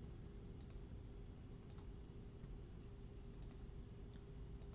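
A few faint, scattered clicks of computer keys, about half a dozen spread out, over a low steady background hum.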